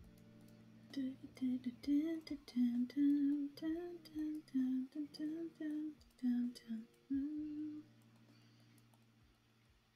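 A woman humming a tune, one note after another, starting about a second in and stopping near the eight-second mark, over faint background music.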